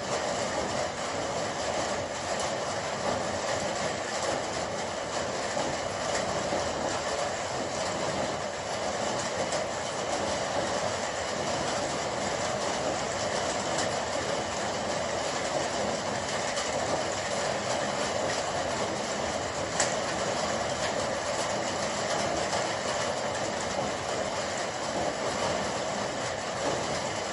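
Heavy rain falling steadily: a dense, even hiss of drops with fine crackle. One sharper tick comes about twenty seconds in.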